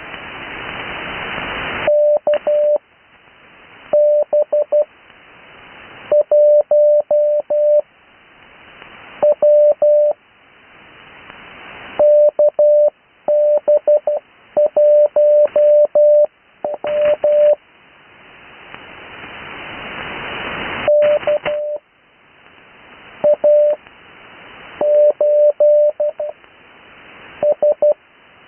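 Morse code (CW) on the 80 m amateur band, received off the air: a single steady tone keyed in dots and dashes, sent with Farnsworth spacing so each character stands alone with a gap of a second or two after it. In each gap, band static hiss swells up, then drops away as the next character is keyed.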